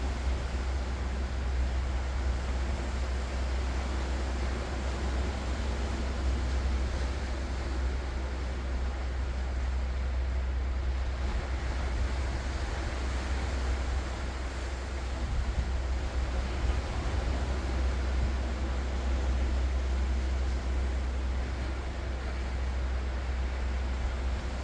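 Ocean waves washing ashore: a continuous rushing surf with a strong steady low rumble underneath.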